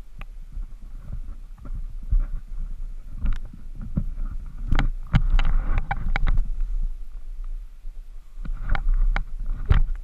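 Knocks and rubbing of a hand handling a helmet-mounted camera, heard loud and close, with the loudest knocks about halfway through and near the end, over a low rumble.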